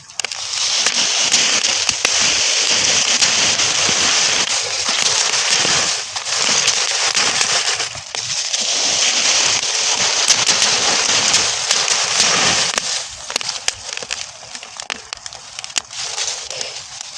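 Burning straw fire crackling densely, with rapid small pops over a steady hiss. It eases briefly twice in the middle and dies down for a few seconds near the end.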